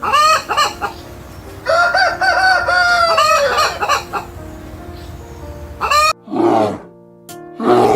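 Rooster crowing: a short call at the start, then one long drawn-out crow, over background music. Near the end, a few short, rough low calls from a different animal begin.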